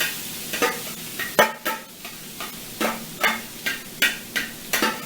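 Crumbled seasoned tofu sizzling as it goes into a hot oiled frying pan, with a utensil scraping and knocking in short strokes, about two or three a second, as the mixture is pushed out of the bowl into the pan.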